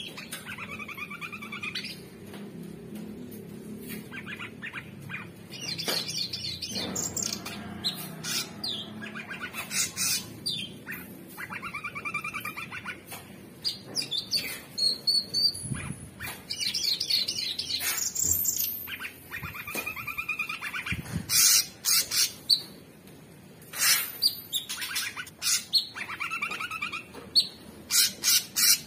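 Male orange-bellied leafbird singing a long, varied song of trills and warbled phrases broken by sharp, high chips, which come thicker and faster near the end. It is the song of a well-trained singing bird full of learned, mimicked phrases.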